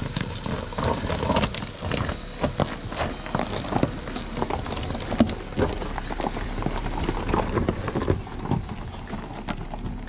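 Jeep Wrangler's tyres rolling slowly over loose rock and gravel, a stream of irregular crunches and stone pops over a low running rumble as it passes close by.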